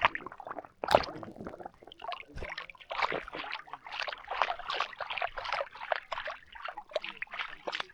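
Water splashing and sloshing close by in quick, irregular strokes.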